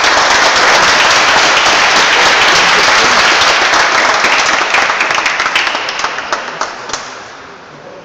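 Spectators applauding loudly in a large hall in reaction to a knockdown, dying away about six or seven seconds in with a few last separate claps.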